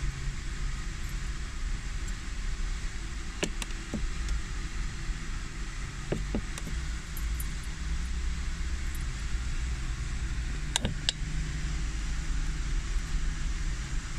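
A Honda Vezel's engine idling steadily while its dual-clutch transmission runs a clutch filling check. A few sharp clicks come in pairs, about three and a half, six and eleven seconds in.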